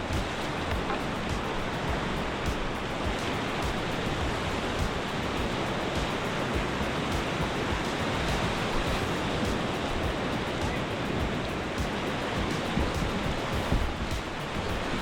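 Steady rushing of whitewater in a creek rapid, an even wash of water noise with no break.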